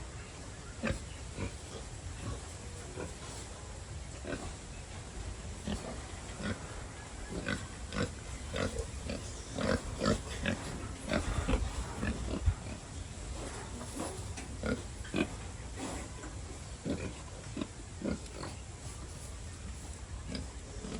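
Pigs grunting in many short, irregular grunts, thickest about halfway through.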